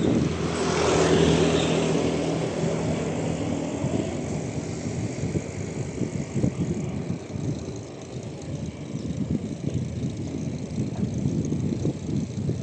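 A motor vehicle passes, its engine hum loudest about a second in and fading away by about four seconds, followed by a steady low rumble of wind and road noise.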